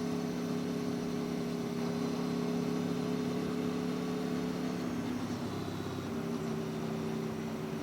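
Aprilia Tuono V4 1100's V4 engine running at a steady cruise with wind rush; the engine note eases slightly lower about five seconds in.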